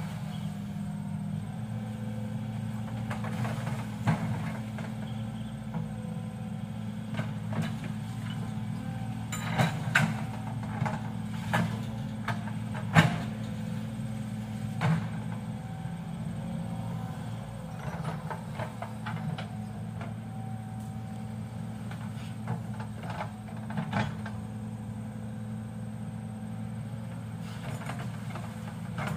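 Excavator engine running steadily, with scattered metallic clanks and knocks, a loud one about halfway through.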